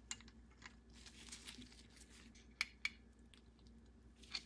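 Faint, scattered clicks and light metallic ticks of locking pliers and a wrench on steel spark plug non-fouler adapters and an oxygen sensor as they are tightened together, with two sharper clicks just past the middle.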